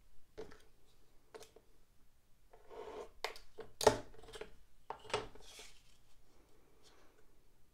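Utility knife drawn along a steel ruler, scraping as it slices through a sheet of watercolour paper on a cutting mat. Sharp clicks and knocks come as the knife and ruler are handled and set down, the loudest about four seconds in, with the cut paper sliding on the mat.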